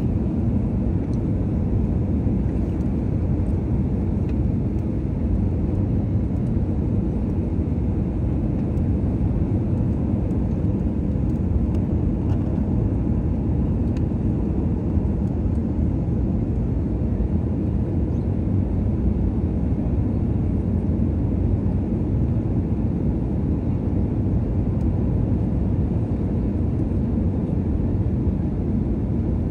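Steady cabin noise of an Airbus A320neo on descent, heard inside the cabin by a window seat: a low, even drone of the CFM LEAP-1A engines and airflow over the fuselage, with no change in pitch or level.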